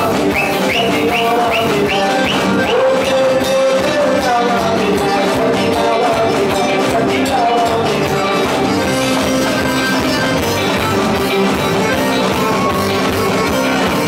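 Live chutney-soca band playing loud, up-tempo music with electric guitar and keyboard, with a quick run of repeated high notes about half a second in.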